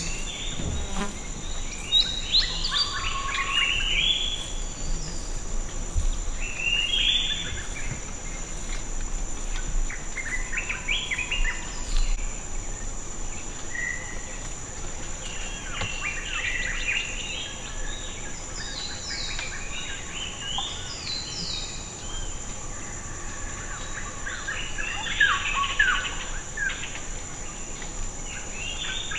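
Rainforest ambience: insects droning steadily at a high pitch, with birds chirping and calling on and off over it.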